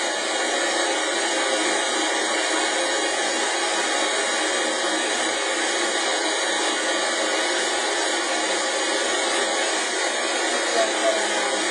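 Steady white-noise hiss, even and unchanging, with no deep bass, of the kind played to calm a crying baby.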